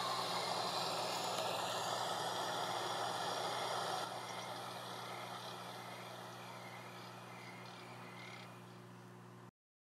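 Faint hiss with a steady low hum, fading away gradually and then cutting off abruptly near the end.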